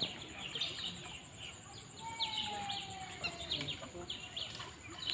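Birds chirping repeatedly in short, high calls, with one fainter, longer call that falls in pitch about two seconds in.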